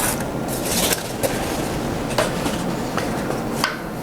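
Handling of a wooden presentation box: a few scattered light knocks and a short scrape or rustle as its lid and contents are moved.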